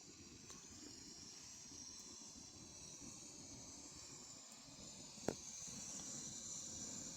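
Portable gas stove burner hissing steadily under a pot of water heating toward the boil, with one sharp click a little over five seconds in.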